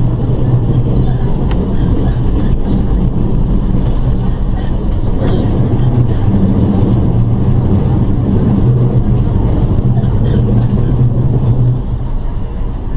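MTR East Rail electric train running at about 84 km/h, heard from inside the carriage: a steady rumble of wheels on rail under a low motor hum. The hum cuts out about twelve seconds in and the running noise gets a little quieter as the train eases to 80 km/h.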